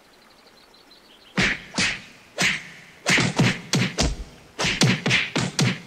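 A rapid flurry of punch and whack impacts, about fifteen hits, starting about a second and a half in and coming faster from about three seconds in.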